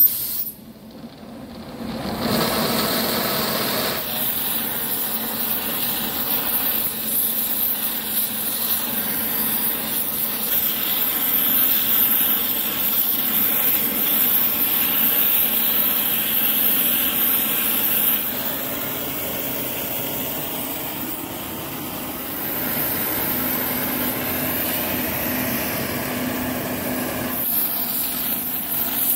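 Oxy-fuel gas torch burning with a steady hiss as its flame heats the steel pickaxe head for hardening. The sound is quieter for the first couple of seconds, then holds steady.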